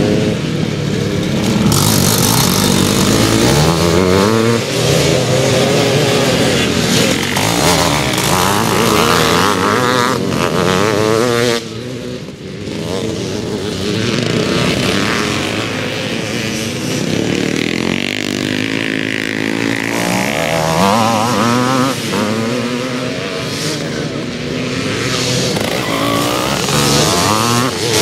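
Several vintage twinshock motocross bikes racing past, their engines revving up and down through the gears with overlapping notes. About two-thirds of the way through, one engine note falls in pitch as a bike goes by.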